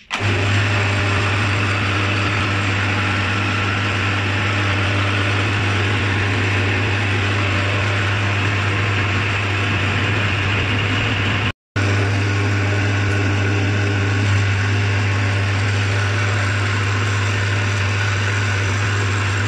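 Metal lathe running, turning down the welded rear axle shaft of a Massey Ferguson 240 tractor: a steady low hum with an even hiss of cutting. The sound cuts out briefly about eleven and a half seconds in, then resumes unchanged.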